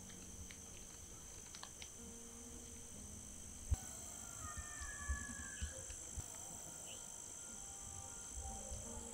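Steady high-pitched chorus of crickets at night, with a faint, distant animal call wavering in pitch from about four seconds in, which the camper thinks may be a hyena. A single dull thump just before the call is the loudest sound.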